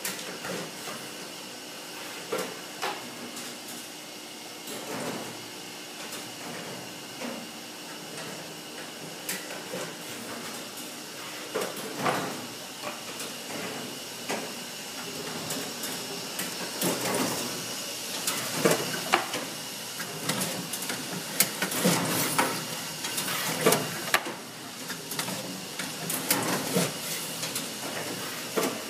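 Plockmatic booklet maker running over a steady motor hum, with repeated clunks and clacks as it staples, folds, square-folds and trims sets of sheets into booklets. The clunks come more often and louder in the second half.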